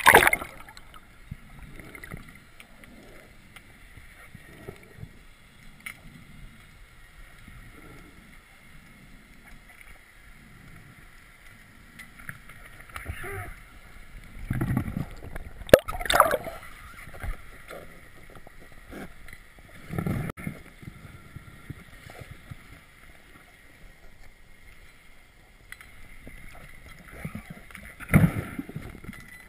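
Muffled underwater sound from an action camera during a breath-hold spearfishing dive: a splash as it goes under at the start, then a low steady murmur with a faint hum, broken by bubbling rushes and knocks of the diver's gear a few times, including a louder one near the end as the float line is hauled.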